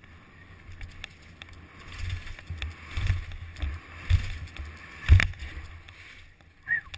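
Wind rushing over a helmet-mounted camera's microphone, with low thumps and rattles as a bike rolls fast over stone paving and steps. There is a sharp knock about five seconds in and a short squeak near the end.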